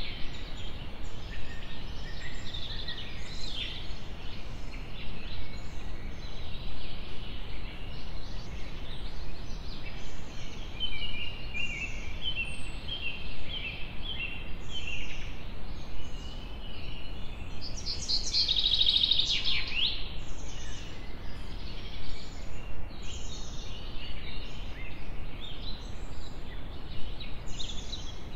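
Small birds chirping and calling in a busy chorus of short high calls, with a louder burst of rapid chattering about two-thirds of the way through. A steady low rumble of outdoor noise lies underneath.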